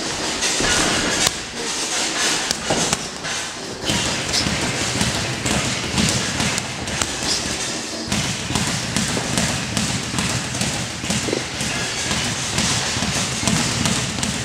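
Boxing gloves thudding repeatedly on gloves and padded headgear during close-range sparring, with voices talking in the background.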